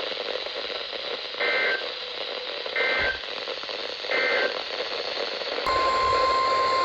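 Emergency Alert System audio over radio hiss: three short warbling data bursts about a second apart, the SAME end-of-message code that closes the thunderstorm warning. Near the end, the steady single-pitched NOAA Weather Radio warning alarm tone (1050 Hz) comes on suddenly, announcing the next alert.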